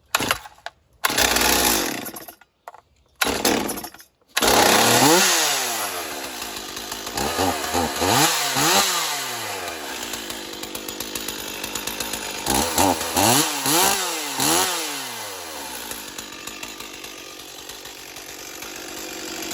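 Stihl MS440 two-stroke chainsaw cold-started: a few short bursts with gaps, then it catches about four seconds in and runs. It is revved up and down several times, then settles to idle.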